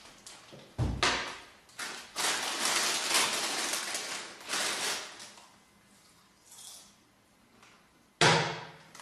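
A woman burping several times: a sudden burp about a second in, a long rough one lasting about three seconds, and another sudden, deep burp near the end.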